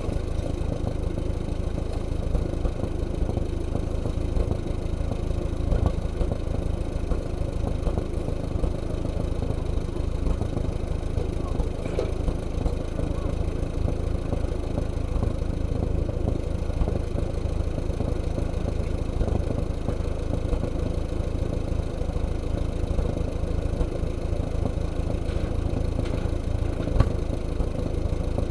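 Allis-Chalmers WD45 tractor engine idling steadily, with a few short metallic clicks.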